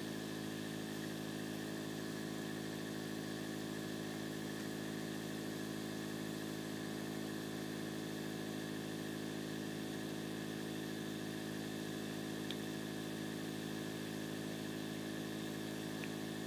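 Steady, unchanging machine hum made of several low tones, with a faint tick about twelve seconds in.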